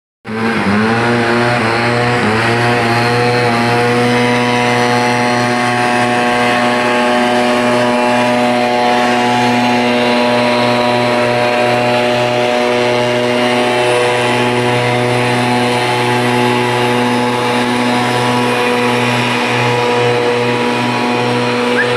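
An engine running steadily at constant speed, a continuous drone that settles to a fixed pitch within the first couple of seconds.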